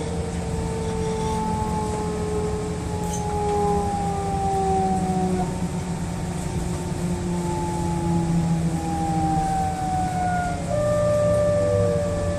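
DB Class 426 electric multiple unit's traction drive whining in several clear tones that glide slowly downward in pitch, with a jump to a new set of tones near the end, one dropping steeply. This is the squealing drive sound that gives the class its nickname "Quietschie". A steady low hum runs underneath.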